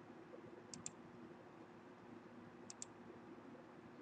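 Computer mouse clicked twice, about two seconds apart, each click a quick sharp press-and-release pair, over faint steady room hiss.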